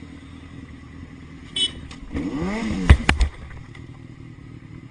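Sport motorcycle engine rumbling low, then revving up and back down, followed by two loud clattering impacts as the bike falls over onto the pavement. A short high squeak comes about a second and a half in.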